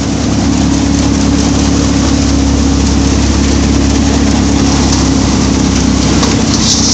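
Tractor-mounted multicrop thresher running steadily: a constant low engine hum under a continuous mechanical rush, with a brief rise in hiss near the end.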